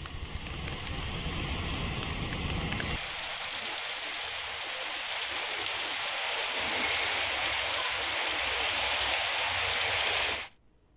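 Heavy rain falling, a steady hiss of rain on waterlogged streets. A low rumble underneath drops away about three seconds in, and the sound cuts off just before the end.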